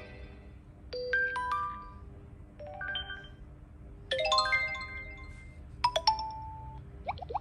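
Redmi 9 Power notification tones played one after another: about five brief chimes, each a few clear bell-like notes, one of them a quick rising run of notes about four seconds in.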